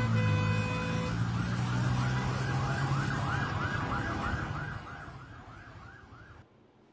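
Vehicle siren in a fast yelp, its pitch sweeping up and down about three to four times a second over a low steady hum. It fades away over the last two seconds and then cuts off.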